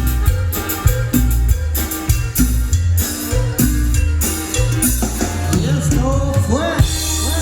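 Upbeat Latin music with a steady drum kit beat and heavy bass. A few swooping, sliding tones come in over the last couple of seconds.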